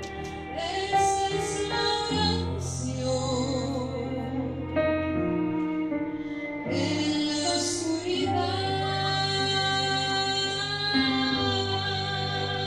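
A woman singing a worship song into a microphone, with vibrato on held notes, over instrumental accompaniment with sustained bass notes that change every second or two, amplified through the church's loudspeakers.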